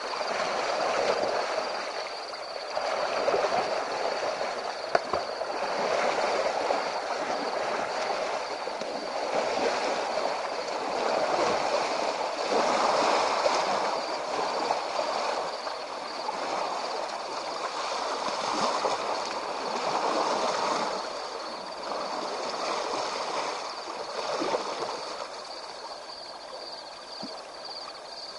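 An African elephant wading through a river, the water sloshing and splashing around its legs in surges every couple of seconds. A steady high-pitched tone runs underneath.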